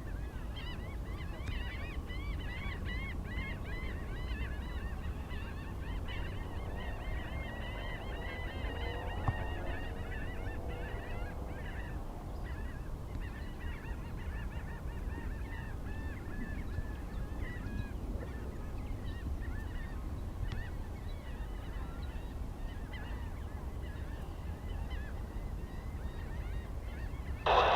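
A flock of birds calling over and over, many short calls overlapping, thicker in the first dozen seconds and then thinning out, over a steady low rumble.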